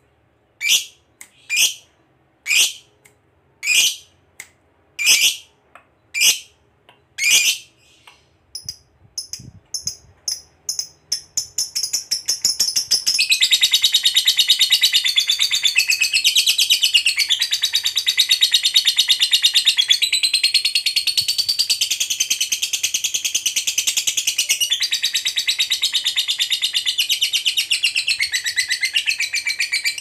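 Lovebird calling: sharp shrill calls about once a second, quickening after about eight seconds, then running together into a long, continuous, rapid chattering trill from about twelve seconds in. This is the 'ngekek panjang', the long chatter that fanciers prize in a fighter lovebird.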